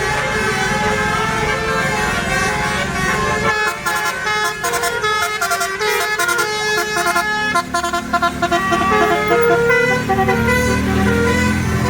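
Bus telolet horn, a basuri-type multi-tone air horn, playing a quick melody of stepped notes over the low rumble of a bus engine. The engine fades about 3.5 s in and swells again from about 7.5 s while the horn keeps playing.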